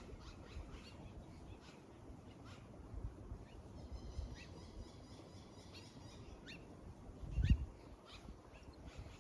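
Small birds chirping in short, high notes, with a quick trill of rapid repeated notes midway, over a low rumble; a dull thump comes late on.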